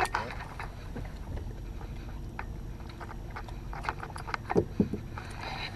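Steady low rumble of a fishing boat on the water, with faint hum, scattered small clicks of tackle handling, and two louder knocks near the end.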